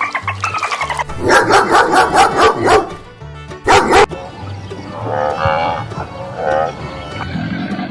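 A dog barking rapidly about eight times, then once more, followed by drawn-out animal calls that include cattle mooing near the end, over light background music.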